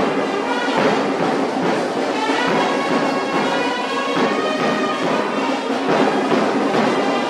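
Instrumental background music with layered sustained notes at a steady level.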